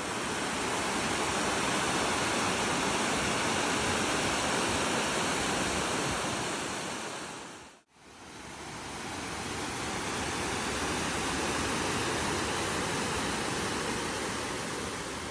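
Steady rush of falling water from the High Falls waterfall, in two stretches that each fade in and out, with a brief drop to near quiet about eight seconds in.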